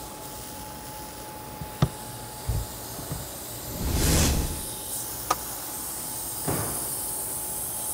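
Water from a hose spraying over a VW Golf IV's rear body during a water leak test, a steady hiss that swells for about a second around four seconds in. A few sharp clicks and soft knocks sound over it.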